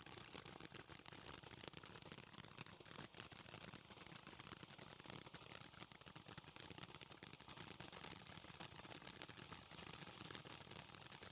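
Consumer ground fountain firework (Dominator Hero Lightning) crackling faintly with a dense, steady run of rapid small pops and cracks from its strobe and crackling effects.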